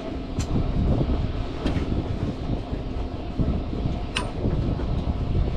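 Steady low rumble of a fishing boat's engine, with a few short sharp clicks.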